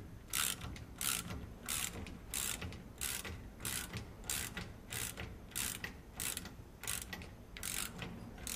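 Socket ratchet being swung back and forth to tighten a flail chain bolt on a muck spreader rotor: a steady run of short clicking rasps, about three a second, one per back-stroke.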